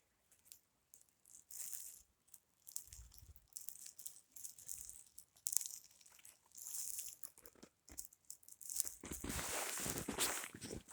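Footsteps crunching in deep snow, scattered at first and then coming thicker and louder near the end.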